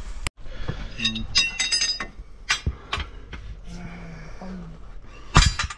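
Metal clinking and knocking on a tractor's steel wheel rim during tyre work: a quick run of ringing clinks about a second and a half in, a couple of single knocks, and the loudest knock near the end.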